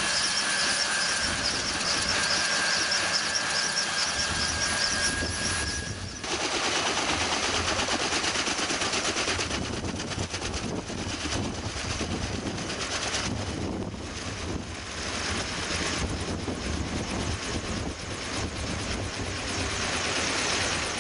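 Kaman K-MAX helicopter with intermeshing twin rotors: a turbine whine with a steady high tone over the spinning rotors, then from about six seconds in the rotor blades beat heavily and rapidly as it lifts off and climbs overhead.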